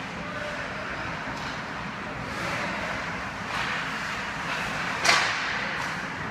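Ice hockey play on a rink: skate blades scraping the ice and sticks working the puck, with one sharp crack about five seconds in.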